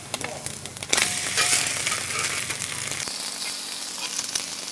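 Eggs sizzling in oil on a round griddle pan while a spatula scrapes and clicks against the pan to turn them. After a sharp click about a second in, the sizzle grows louder and runs on steadily.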